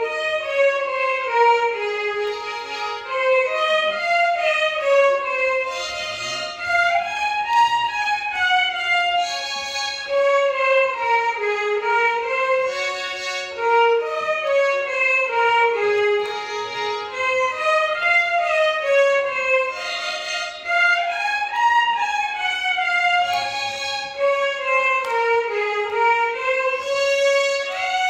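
A violin ensemble playing a Carnatic melody in unison, bowed phrases climbing and falling in steps over a steady drone note.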